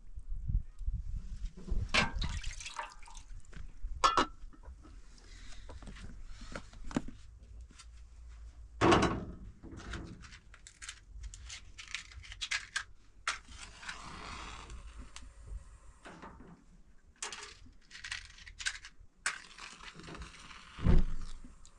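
Stainless-steel pots, lids and bowls being handled: irregular knocks and clinks, with a heavier thump near the end.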